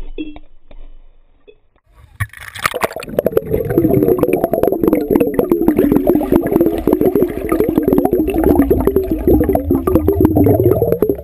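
Underwater sound through a GoPro in its waterproof housing: loud, muffled churning and bubbling of water stirred by swimmers, full of small clicks, with a thin high whine on top. It starts about two seconds in as the camera goes under and stops abruptly near the end.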